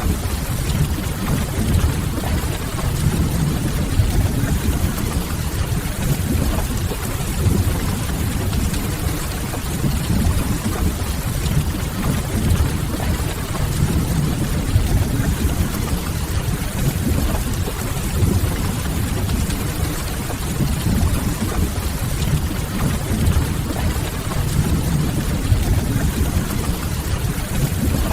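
Steady rain ambience: an even wash of rain with a deep, low rumble underneath that stays constant throughout.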